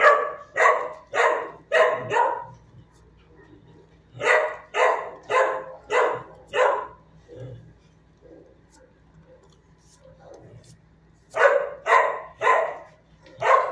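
Dog barking in three bouts of quick, repeated barks, about two barks a second, with quiet pauses between the bouts.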